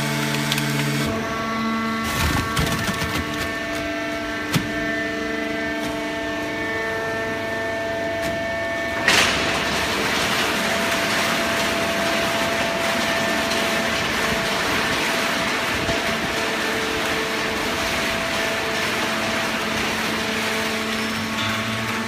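Hydraulic horizontal baling press running: a steady machine hum with several tones that shift as it works, a few knocks early on and one sharp bang about nine seconds in, after which a steady hiss runs on under the hum.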